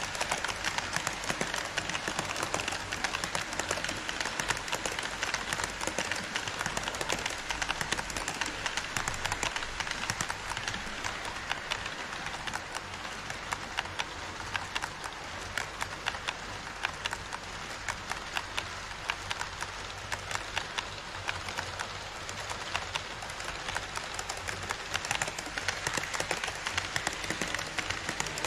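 HO scale model trains rolling past on KATO Unitrack: an EF81-hauled Twilight Express, then an E5 series shinkansen. It is a steady rolling rattle with a dense run of quick clicks from the wheels over the track joints, louder in the first several seconds and again near the end as each train runs closest.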